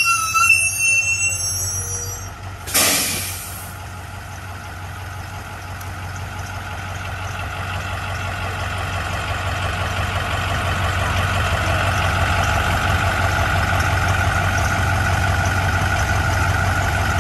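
A school bus's diesel engine idling at the curb, growing slowly louder. About three seconds in comes a sharp hiss of released air lasting about a second, typical of the bus's air brakes.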